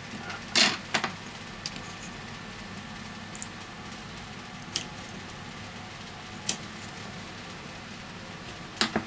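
Scattered small clicks and rustles of hands handling a smartphone LCD module and a metal hand tool on a rubber work mat, over a steady faint hiss. The loudest is a brief rustle about half a second in, with single clicks spread through the rest and a quick double click near the end.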